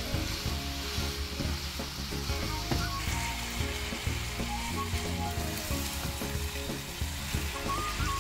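Ground beef with chopped onion and scallion sizzling in a non-stick frying pan while a wooden spoon stirs and breaks up the meat, with music playing underneath.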